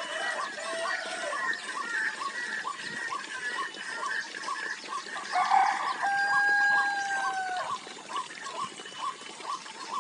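A rooster crowing once, about five and a half seconds in: a harsh start drawn out into a long held note that drops at the end. Behind it, a short call repeats steadily about twice a second throughout.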